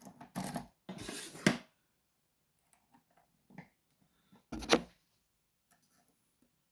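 Lock-picking tools being worked in a Sargent pin-tumbler lock held in a vise: scraping and rattling for the first second and a half as the tensioner and hook pick go in, then faint scattered clicks of the pick on the pins and one sharp knock a little past the middle.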